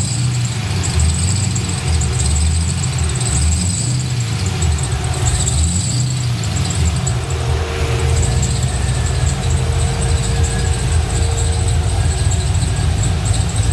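LS V8 engine idling with its accessory drive belt squealing, a thin high-pitched steady squeal over the engine's low rumble. The squeal grows worse when the A/C compressor is switched on.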